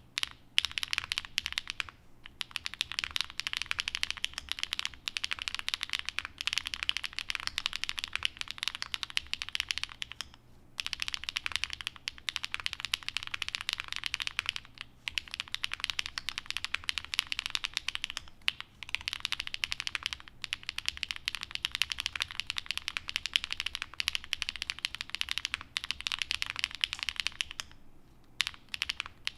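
Fast, continuous typing on a Qwertykeys NEO80 custom mechanical keyboard with HMX Sunset Gleam (Duck Duck) linear switches, a POM plate, full foam and GMK Mika keycaps. Dense keystrokes run with brief pauses about ten seconds in and again near the end.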